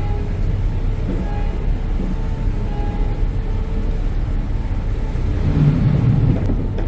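Harbour ferry under way: a steady low engine rumble with water washing past the hull, swelling briefly about five and a half seconds in.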